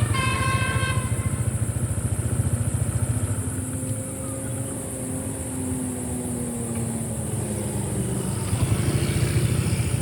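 Bus engine running under way with road rumble. The last notes of a multi-tone telolet horn melody sound in the first second, and a faint whine slides slowly down in pitch in the middle.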